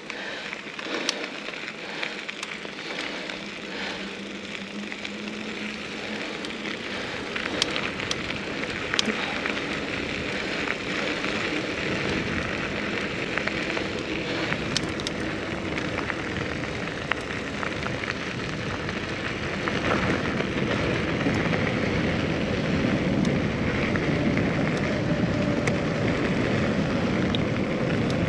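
Riding noise of a mountain bike on a trail: wind rushing over the camera's microphone and tyres rolling, growing steadily louder, with scattered clicks and rattles.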